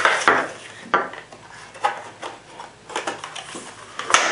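Stiff clear plastic clamshell packaging crackling and clacking as it is handled and pulled apart, in several separate sharp crackles. The loudest come near the start and near the end.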